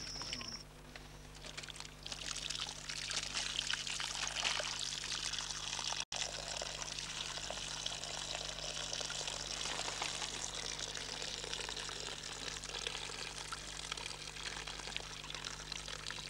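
Water pouring and trickling as sago pith pulp is washed and the starchy water drains through a net filter into a palm-leaf-stem trough. A steady splashing trickle, briefly cut off about six seconds in.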